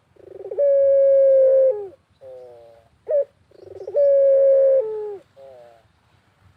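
Puter (Barbary dove) cooing twice. Each coo opens with a quick stutter, holds one long steady note for about a second, then drops away and is followed by shorter falling notes.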